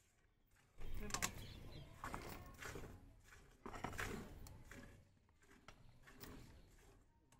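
Jets of buffalo milk squirting into a steel bucket during hand milking: a series of irregular hissing spurts, the strongest about a second in and about four seconds in, fading toward the end.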